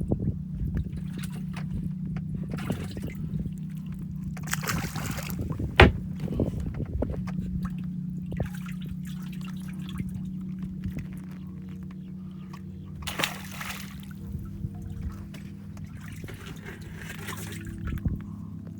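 Water splashing and trickling around a fishing boat, over a steady low hum, with a sharp knock about six seconds in.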